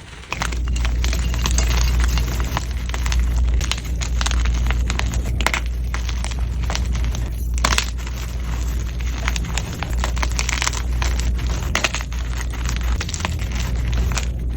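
Gym chalk blocks crunching and crumbling under close-up crushing. The crackle is dense and continuous and starts about half a second in.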